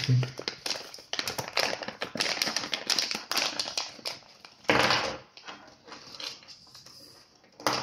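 Clear plastic toy bag from a Kinder Surprise Maxi egg crinkling as hands pull it open, a rapid run of crackles with a louder burst about five seconds in.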